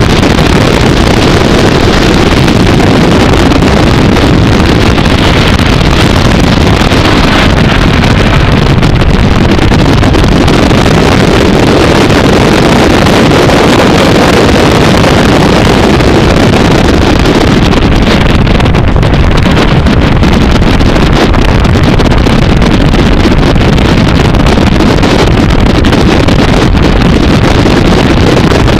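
Abarth 500 race car's turbocharged four-cylinder engine running hard at speed, heard through heavy wind buffeting on an outside-mounted microphone; loud and steady throughout.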